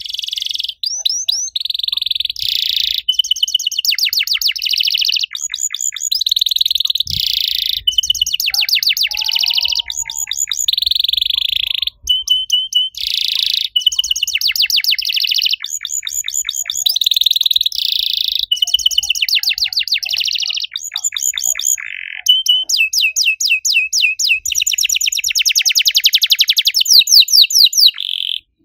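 Domestic canary singing a long, almost unbroken song of fast trills: rapid runs of repeated chirps and short held whistles, switching to a new phrase every second or two, with only a couple of very brief breaks.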